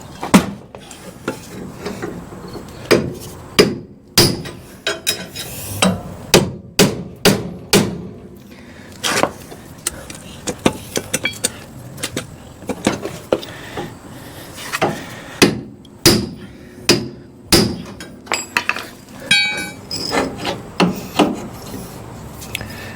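Hammer blows on the front frame rail of a 1966 Ford Ranchero, which is being hammered to straighten a section bent by a curb strike. The blows are irregular, often one or two a second, with short pauses between runs.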